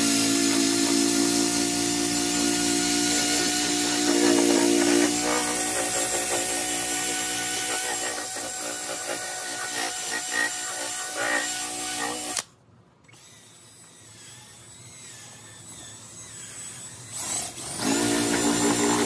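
Cordless DeWalt 20V drill spinning a foam buffing pad, the pad rubbing polishing compound over a plastic lightbar dome. The motor runs steadily, cuts off abruptly about two-thirds of the way through, and starts up again near the end.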